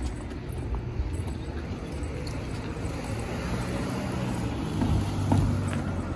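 Town street ambience with a car driving past, loudest about five seconds in.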